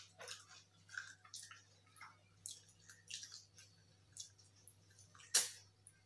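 Close-up eating sounds of people eating rice and curry with their hands: wet chewing and lip smacks, a string of short irregular smacks with a louder one about five seconds in.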